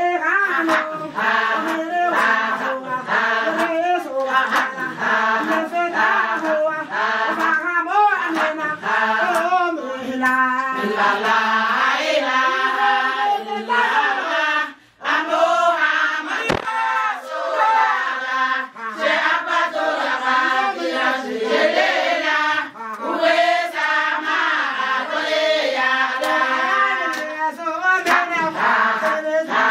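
A group of women singing a chant together over a steady beat of sharp strikes. The singing breaks off briefly about halfway through, then carries on.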